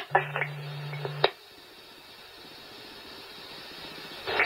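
Police scanner radio between transmissions: an open channel with a steady hum and a few clicks that cuts off about a second in, leaving faint hiss, then static comes up again near the end as the next transmission keys up.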